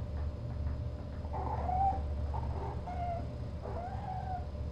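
Kitten meowing: several short, high calls, the longest near the end, over a steady low hum.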